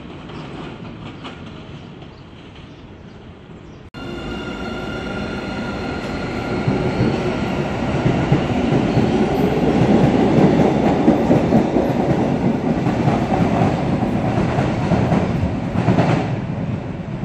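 MBTA Blue Line subway train moving along the platform close by, with electric motor whine rising in pitch as it picks up speed and wheels rumbling on the rails, loudest about ten seconds in. For the first few seconds a quieter train approaches in the distance.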